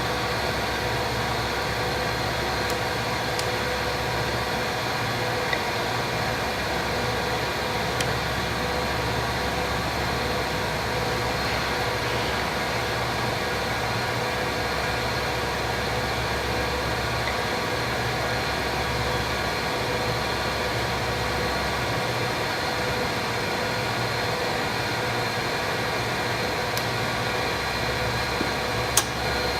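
Hardinge HLV-BK toolroom lathe running steadily under power, its spindle drive giving an even hum with a few steady whining tones. A couple of brief clicks, the sharpest near the end.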